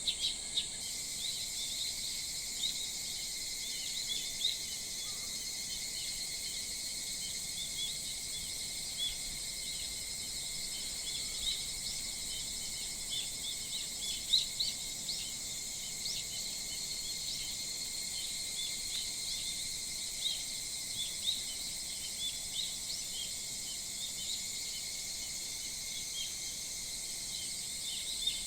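Early-summer morning chorus: a steady, high-pitched drone of insects, with wild birds chirping in many short calls throughout.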